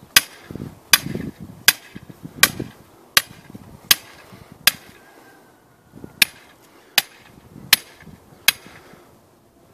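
Hammer striking the top of a steel layout stake, driving it into the ground: sharp ringing blows in an even rhythm, about one every three-quarters of a second. Seven blows, a short pause a little before halfway, then four more.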